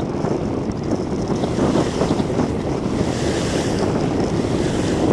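Wind buffeting the microphone over water rushing and splashing around a boat at sea, with a brief hissing swell of spray about three seconds in.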